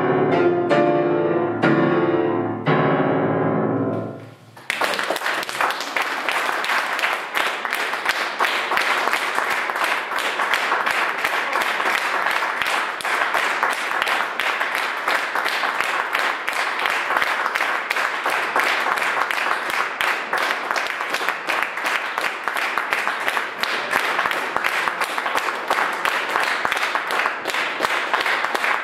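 Grand piano playing the closing notes of a piece, which die away about four seconds in. An audience then breaks into steady applause.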